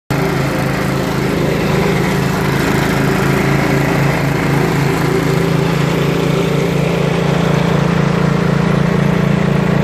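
Walk-behind tractor with a front rotary mower deck running steadily at a constant speed while cutting grass: a loud, even engine drone.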